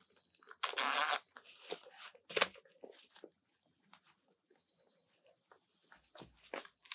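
Cordless impact driver whining, then hammering for about half a second as it tightens the screw of a worm-drive hose clamp on a layflat header line's insert adapter. A sharp knock follows about two and a half seconds in, then light clicks of the metal clamp and plastic fittings being handled.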